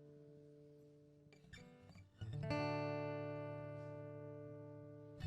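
Acoustic guitar playing the quiet introduction to a worship song: a few light strums, then a full chord struck about two seconds in and left to ring and fade, with another strum at the very end.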